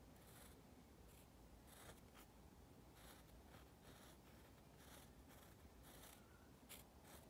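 Faint scratching of a graphite pencil sketching on a sanded wood slice, in short, irregular strokes, a few each second.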